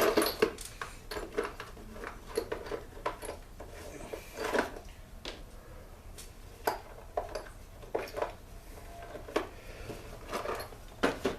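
Irregular clinks, clicks and knocks of small metal engine parts being handled and set down on a workbench, over a steady low hum.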